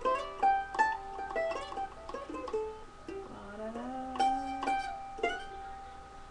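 Mandolin being picked: single notes and a few brighter strummed strikes at an irregular, unhurried pace, each note ringing on briefly.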